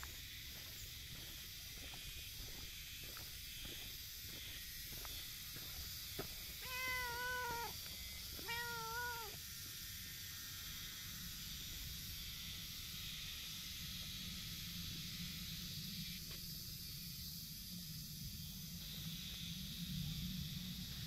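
Tortoiseshell cat giving two drawn-out meows, each about a second long and a second apart, about a third of the way in.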